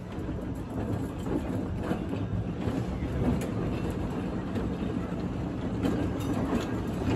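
Open trolley car 1758 rolling toward the listener on its track, wheels clicking and rumbling on the rails over a steady low hum, growing louder as it nears.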